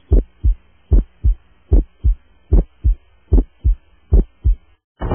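Heartbeat sound effect: six deep lub-dub double thumps, a pair a little under once a second. A sudden loud boom that rings on breaks in just before the end.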